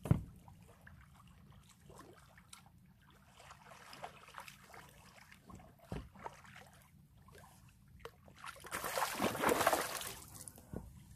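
A hooked fish splashing and thrashing at the water surface for about two seconds near the end. A sharp knock comes at the very start, and a softer one about halfway through.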